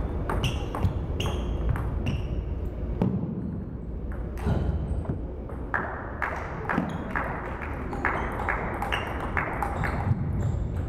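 Table tennis ball clicking. There are a few short ringing bounces in the first couple of seconds, then quick sharp clicks of ball on paddle and table as a rally is played, over a steady low hum.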